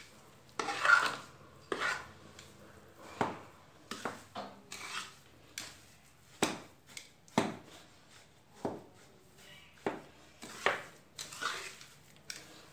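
A metal spatula scraping and knocking against the sides of a metal kadhai while stirring a thick panjiri mixture of roasted flour and sugar. The clinks and scrapes come irregularly, about once a second.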